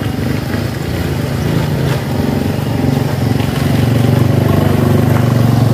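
Small motorcycle engine running under load as the bike climbs a steep dirt slope, growing louder as it approaches.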